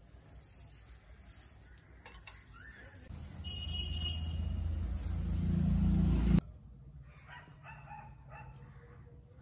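Chickpeas boiling hard in a clay pot, a low rumbling boil that builds up louder and cuts off suddenly. Near the end, cooking oil glugs from a plastic bottle into a non-stick pan.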